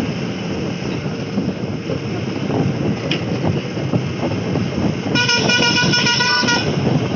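Bus driving along a road: the steady rumble of engine and road noise through the open window, with a vehicle horn blowing one steady note for about a second and a half near the end.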